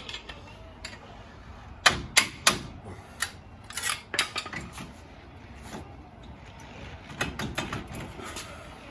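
Sharp metallic clinks and knocks of hand tools working on a wheel hub: three quick strikes about two seconds in, scattered taps after, and another cluster near the end.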